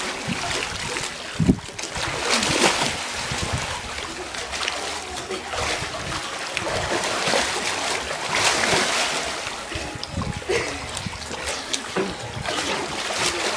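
Swimming-pool water splashing and sloshing as several people thrash and wrestle in it, with a few louder splashes.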